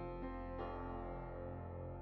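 Gentle background music with struck keyboard notes; a new chord sounds about half a second in, then is held and slowly fades.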